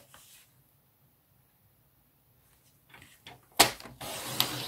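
Paper trimmer's sliding blade drawn along its rail, cutting across a sheet of designer paper: near silence, a few faint taps, then about three and a half seconds in a sudden scraping cut lasting about a second.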